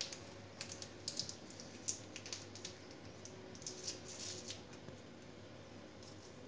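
Faint, scattered light ticks and rustles of small objects being handled on a kitchen counter, dying away after about four and a half seconds.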